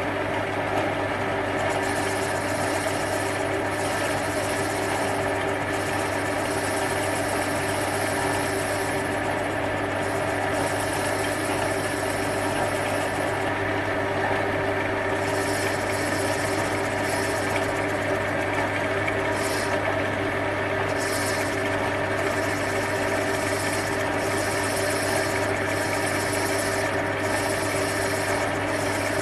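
Small hobby metal lathe running steadily, its motor and gear drive humming, while the tool turns an aluminium part; a higher cutting noise comes and goes several times as the tool is fed in and backed off.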